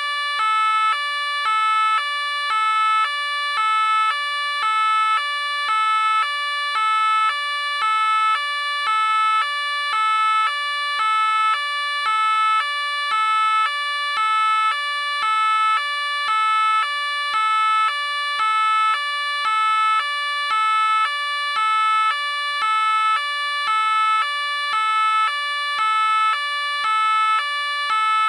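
French police car two-tone siren sounding continuously: two notes alternate evenly, low then high, about one cycle a second, with no change in pitch or loudness.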